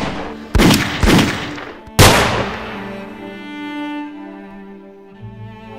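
Three pistol shots, about half a second, one second and two seconds in, each ringing off into a long reverberant tail, the last the loudest. Slow bowed-string music with held low notes follows.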